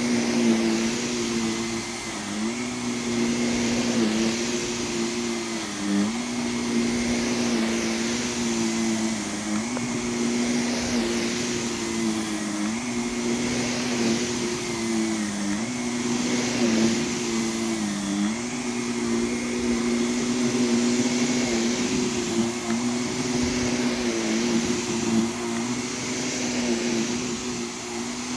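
Vacuum cleaner running steadily while being worked lengthways over a rug, its motor hum over a rushing hiss of air, dipping briefly in pitch every two or three seconds.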